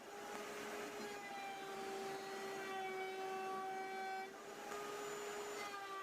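Electric wood router running at high speed, a steady high-pitched motor whine with small shifts in pitch and a brief dip about four seconds in.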